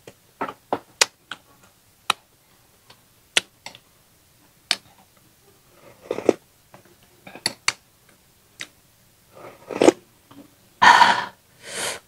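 Close-miked eating sounds: a run of sharp clicks and smacks while chewing rice, then several noisy slurps of soup from a spoon, the loudest near the end.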